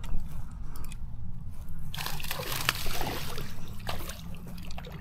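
Water splashing and sloshing as a hooked fish is reeled in through the pond surface, picking up about two seconds in, over a steady low rumble.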